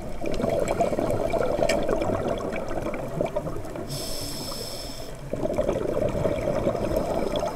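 Scuba diver breathing through a regulator underwater: a hissing inhalation about four seconds in, lasting about a second, between two longer stretches of bubbling, crackling exhaled air.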